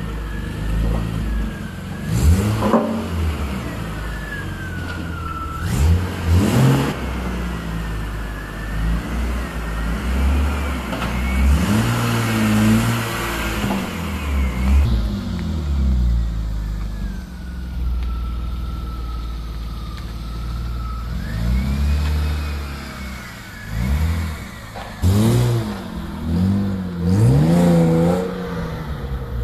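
BMW E36 3 Series Touring engine running through a custom stainless-steel exhaust, idling with repeated throttle blips that rise and fall, with a longer run of revs near the end as the car pulls away.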